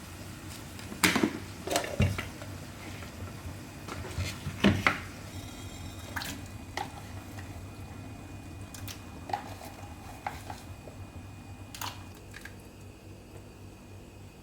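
Kitchenware clattering: dishes, pots and utensils knocked and set down in a string of clinks and clanks, busiest in the first five seconds and sparser after, over a faint steady hum.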